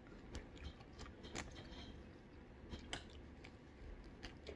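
Faint, scattered wet clicks and smacks of someone biting and chewing juicy pomelo pulp.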